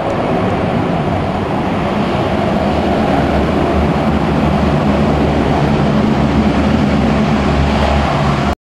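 Lockheed C-130 Hercules' four turboprop engines running loudly as it rolls along the runway after landing: a steady rush of noise over a low propeller hum. It cuts off suddenly near the end.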